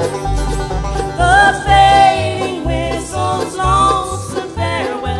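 Live bluegrass band playing an instrumental break. A fiddle carries a lead line with sliding notes over an upright bass, banjo and guitar.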